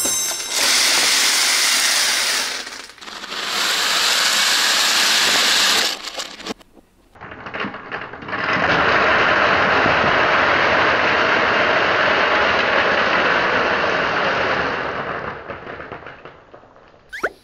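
Steady rattling rush of many small plastic beads pouring out and scattering, in two stretches of a few seconds and then one long one of about eight seconds that fades near the end.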